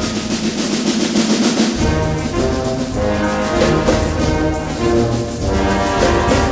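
Wind band playing a mambo, with brass to the fore; the bass line drops away at the start and the full low end comes back in about two seconds in.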